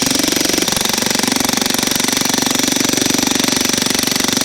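Jackhammer running steadily with rapid hammering, its chisel bit driven down into a red oak round that is just starting to crack.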